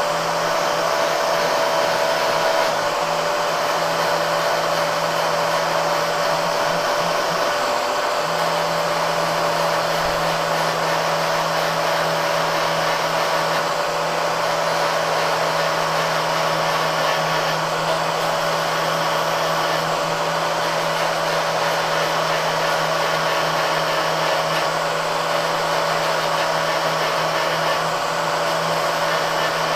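Small electric angle grinder running steadily with its disc against a metal brake caliper bracket, grinding down the underside of the bracket.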